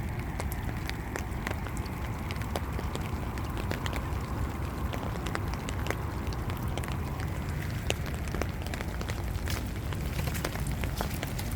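Rain falling steadily: a constant low rush with many sharp, irregular ticks of drops hitting close by.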